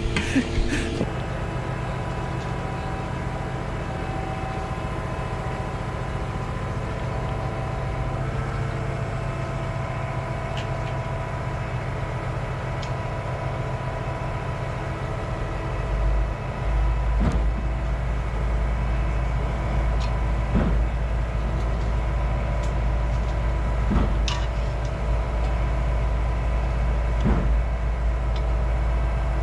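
Concrete pump truck's diesel engine running steadily. About sixteen seconds in it gets louder and deeper, and a short knock repeats roughly every three seconds as the pump strokes.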